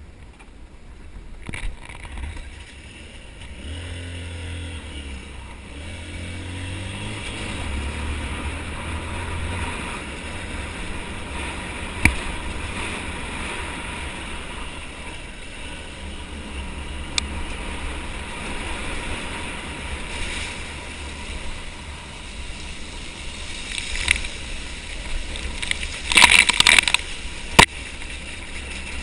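Motorcycle engine running on a rough dirt track, its pitch rising and falling through the first several seconds over a steady low rumble. A few sharp knocks come along the way, and near the end there is a short cluster of loud clattering knocks.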